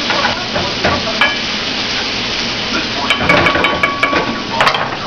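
Onion and celery sizzling in a frying pan, with metal clinks and taps against the pan; a quick run of ringing clinks about three seconds in.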